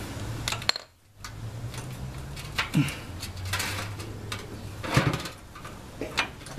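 Scattered light metallic clinks and taps from a socket on an extension being handled around a motorcycle transmission drain plug as the plug is unscrewed by hand.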